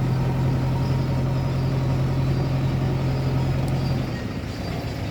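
JCB 3DX backhoe loader's diesel engine running steadily with a strong low hum, which drops away about four seconds in as the engine note falls.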